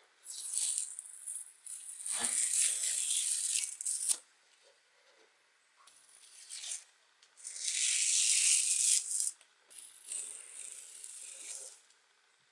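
Tape being peeled off paper: a noisy ripping sound in about five separate pulls, each lasting one to two seconds, with short pauses between them.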